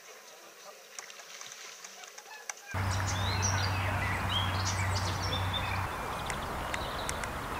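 Faint outdoor background at first, then about three seconds in wind noise on the microphone with a low hum and small birds chirping.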